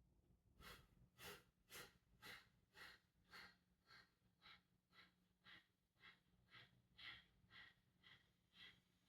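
Kapalabhati breathing: about sixteen short, forceful exhales through the nose, each driven by a snap of the belly, at about two a second, with silent passive inhales between. The puffs are faint and stop shortly before the end.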